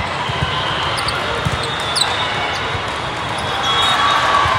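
Indoor volleyball rally in a large, echoing hall: a few dull ball hits and sneaker squeaks over the steady din of play and voices from the surrounding courts.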